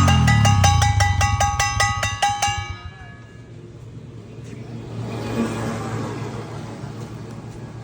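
Motorcycle engine revving and winding down, with a fast, even metallic clatter ringing over it. Both die away about three seconds in, leaving a faint, uneven rumble.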